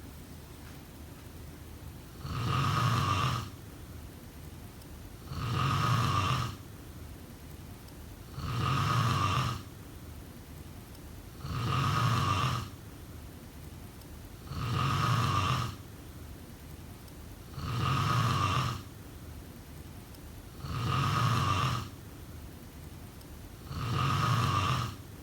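A person snoring in a steady rhythm: a snore about a second long roughly every three seconds, eight in all, each much the same as the last.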